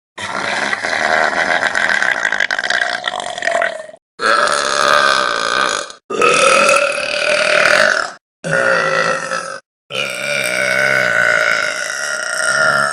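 Five long, loud belches by women, one after another. Each starts and stops abruptly with a short silence between them. Each is drawn out with a wavering pitch, and the first lasts about four seconds.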